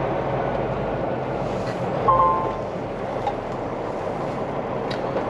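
Semi truck's diesel engine running steadily as the truck creeps along at low speed, heard from inside the cab. About two seconds in there is a brief two-tone squeal.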